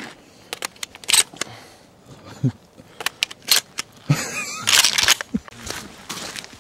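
Handling noise: a string of sharp clicks and knocks with clothing and gear rustling as a hunting crossbow is handled, then footsteps on gravel near the end.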